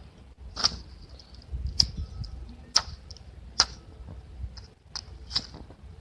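A handheld lighter being flicked again and again, giving a short sharp click about once a second, with low handling rumble underneath.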